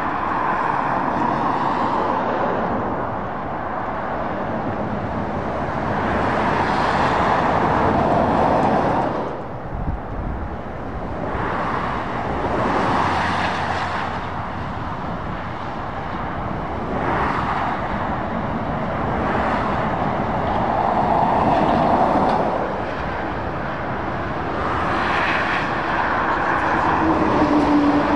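Dual-carriageway traffic passing: lorries, vans and cars go by one after another, their tyre and engine noise swelling and fading in waves. A steady low hum comes in near the end.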